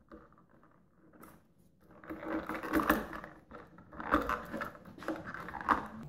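A wall light switch and its wires being handled and worked with a screwdriver: irregular small clicks and scrapes of metal and plastic, starting about two seconds in.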